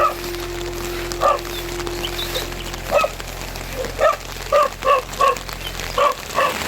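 A dog barking in short, sharp yelps, about nine times, coming faster in the second half, over a steady hiss of rain.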